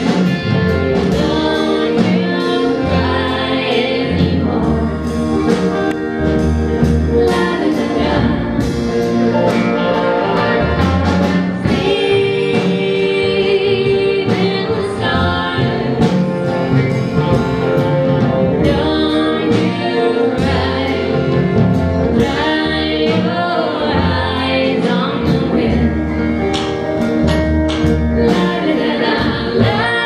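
Live folk string-band music: women singing in close harmony over plucked banjo, upright bass and guitar, with the bass notes pulsing steadily underneath.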